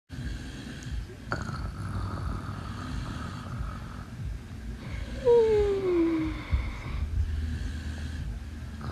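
Snoring: low, rough breathing sounds throughout. A sharp click comes about a second in, and the loudest sound, a falling whine about a second long, comes around the middle.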